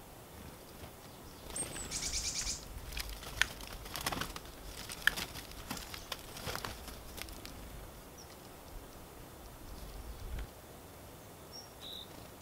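Birds' wings flapping as they fly to and from a seed-covered tree-stump feeder, with scattered sharp taps. A short, high bird call comes about two seconds in and another brief call near the end.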